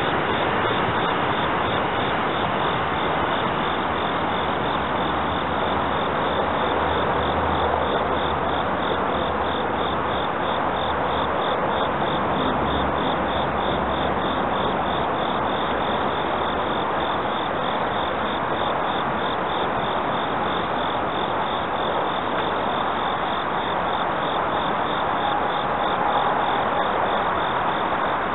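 Insects chirping in a fast, even rhythm over a steady hiss, with a faint low train rumble from about six to fifteen seconds in.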